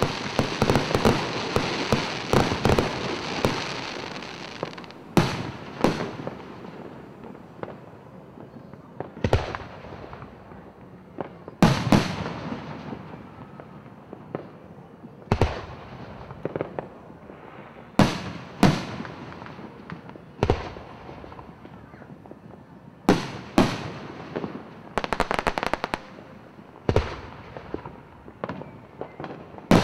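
Aerial fireworks going off: a dense run of crackling reports in the first few seconds, then single shell bursts every few seconds, each a sharp bang with an echoing tail. There is a quick rattle of reports near the end.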